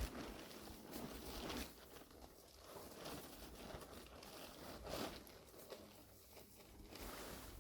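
Faint rustling and scraping noises, with a few soft scuffs.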